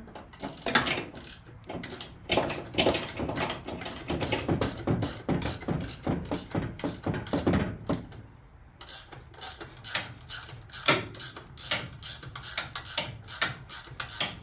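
Hand socket ratchet clicking in rapid strokes as bolts are worked loose on a Chevy 350 V8 during teardown, in two long runs with a short pause about eight seconds in.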